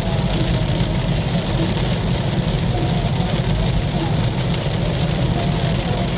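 Car driving through a heavy downpour: rain hitting the car and tyres on the wet road make a steady hiss over a low road rumble.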